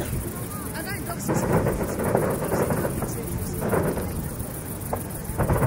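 Fireworks display: aerial shells bursting one after another, the deep booms rolling on like thunder, with sharp cracks in among them.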